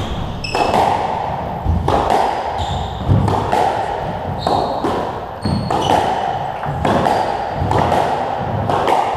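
Squash rally: the ball striking rackets and the walls about once a second, with court shoes squeaking on the wooden floor between shots.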